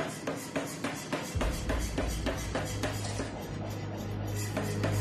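C41 self-contained air power hammer striking in a fast, even rhythm of about four blows a second, each blow a sharp metallic ring. A low steady drone comes in about a second and a half in.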